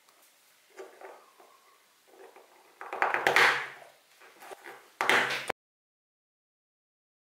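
Grey PVC pipe fittings handled and pushed together by hand: light plastic clicks and taps, then two louder bouts of plastic rubbing and scraping, the second cutting off abruptly.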